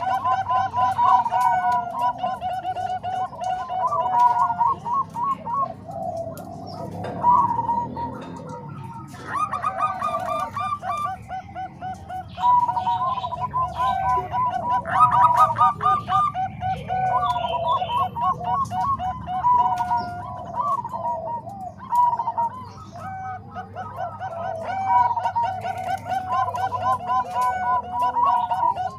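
Zebra doves (perkutut, a Bangkok-strain bird and a Cemani Kolbuntet bird) singing rapid, trilling cooing phrases, one after another with short gaps throughout.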